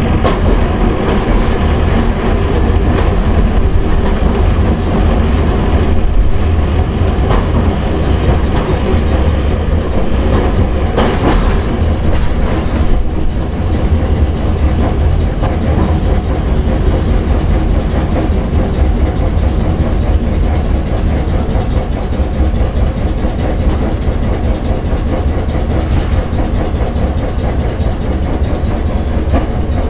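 Hankai Tramway Mo 161-class tram running, heard from the front of the car: the low rumble of its nose-suspended traction motors and gearing, with wheels clicking over the rails.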